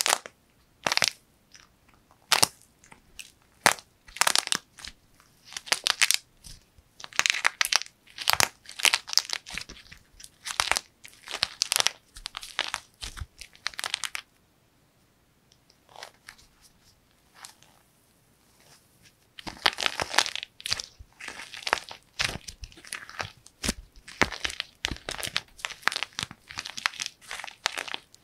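Dried plaster clay being broken and crushed in the hands: the hard crust cracks and crunches in irregular crackling bursts while the soft clay inside is squeezed and torn. A pause of a few seconds about halfway, then a dense run of crunching.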